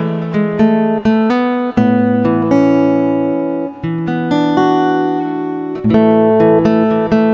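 Background music: guitar notes plucked and left to ring.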